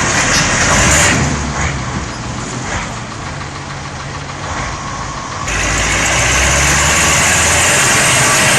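Loud heavy-vehicle engine noise, a dense roar with a low engine note, which steps up louder and fuller about five and a half seconds in.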